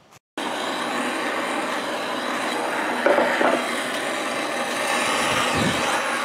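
Hand-held propane torch burning with a steady hiss, preheating the shaper's bearing hub before brazing. The sound starts abruptly about a third of a second in.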